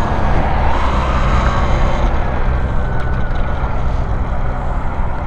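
Talaria Sting R electric dirt bike on the move: heavy wind rumble on the microphone, with the electric motor's thin whine drifting slowly down in pitch as the bike eases off.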